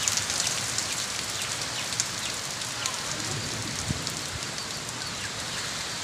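Heavy, torrential rain falling steadily, a dense patter of drops with no let-up.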